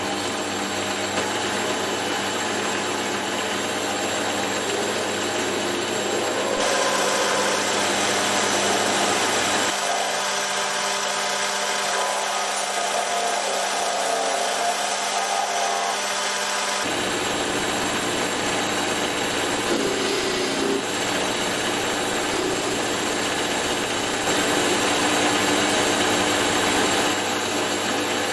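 Metal lathe running under power with a cutting tool taking a light finishing pass on a hinge pin: a steady hiss of cutting over the hum of the motor and belt drive, its tone shifting a few times as the pass goes on.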